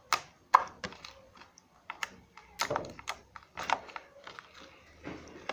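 Homemade slime being squeezed and stretched in the hands, giving off irregular sharp clicks and pops.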